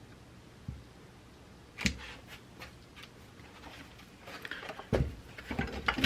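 Light clicks and knocks of small hand tools and wire being handled and set down on a work surface: a sharp knock about two seconds in, scattered ticks, then a busier clatter of taps near the end.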